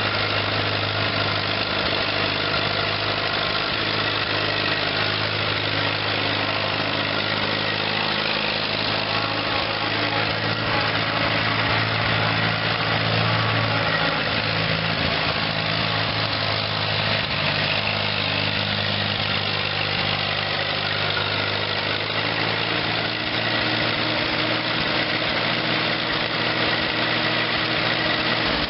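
Allis-Chalmers WD tractor's four-cylinder gasoline engine running steadily at low speed while the tractor is driven, a little louder about halfway through.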